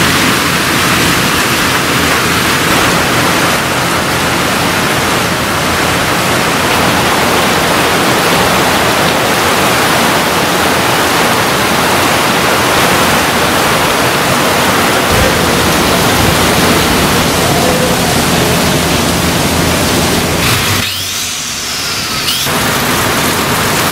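Rain falling steadily: a loud, even hiss that dips briefly near the end.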